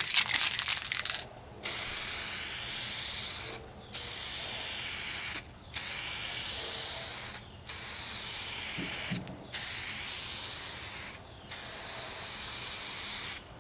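Aerosol can of two-part clear coat spraying in six steady hissing bursts of about one and a half to two seconds each, with short breaks between passes. A brief rattling comes just before the first burst.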